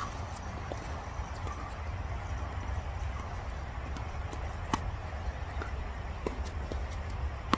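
Steady low rumble with a few scattered sharp knocks of tennis balls being struck and bouncing during play, the clearest right at the start and a little before five seconds in.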